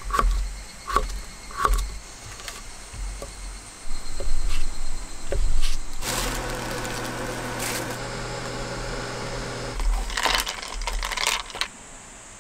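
Kitchen knife cutting on a cutting board. There are three separate chops through cucumber early on, then a steady low hum sets in for a few seconds, and near the end comes a quick run of slicing strokes through a thin egg omelette.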